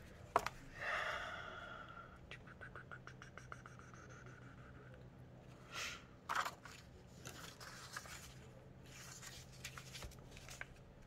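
Paper being handled and pressed down during glue collaging: soft rustles, scrapes and small clicks, with a quick run of ticks a couple of seconds in and a louder rustle a little after halfway.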